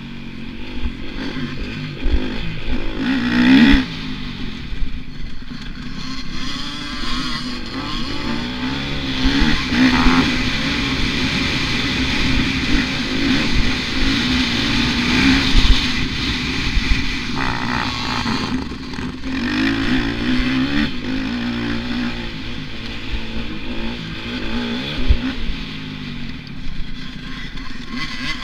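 A motocross dirt bike's engine heard at close range from a helmet camera while riding, revving up and dropping back over and over with throttle and gear changes. A few sharp knocks from the track come through.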